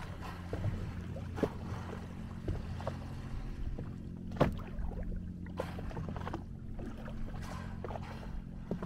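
Motorboat engine running at low speed with a steady hum, with irregular splashes of water against the hull; the loudest splash comes about four and a half seconds in.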